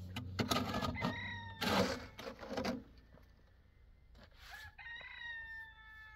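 A rooster crowing twice, once about a second in and again in a longer call near the end, over a few scraping strikes of a shovel into stony soil, the loudest about two seconds in.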